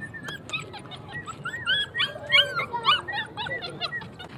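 Puppies yipping and whimpering, a quick run of short high-pitched yelps that builds to its loudest in the middle and fades out near the end.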